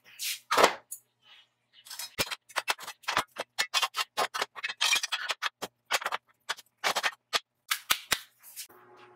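Steel channel and angle bars being handled and laid together on a workbench: a rapid, irregular run of metal clanks and knocks. A faint steady hum starts near the end.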